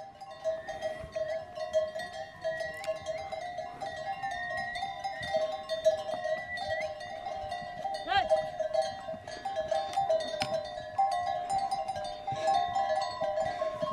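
Bells on pack animals jingling steadily as they move along a trail, a few fixed ringing tones over many small clanks. They break off briefly near the end, and a short wavering tone sounds about eight seconds in.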